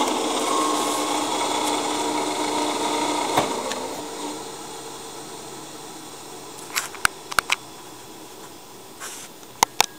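American Rotary single-phase-to-three-phase rotary phase converter running with a steady hum. About three and a half seconds in a click is heard and the hum fades away as the converter winds down, a sign that it has been switched off. A few sharp clicks follow near the end.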